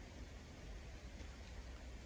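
Faint outdoor ambience: a steady hiss with a low, uneven rumble of light wind on the microphone.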